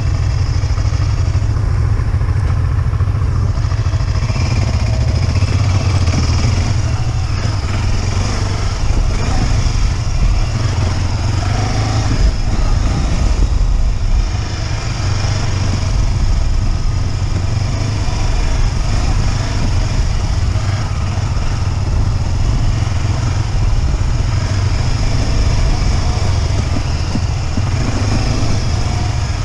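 Motorcycle engine running steadily under way, recorded by a GoPro, with a heavy low rumble.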